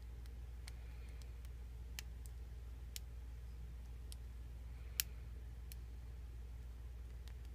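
Irregular light clicks of a lock pick working the pins of a Mako 427 six-pin padlock, with one sharper click about five seconds in, over a steady low hum.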